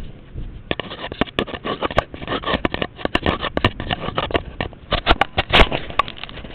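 Handling noise from a camera strapped to a pair of goggles: a dense run of irregular knocks, clicks and scraping as it is jostled while the wearer moves.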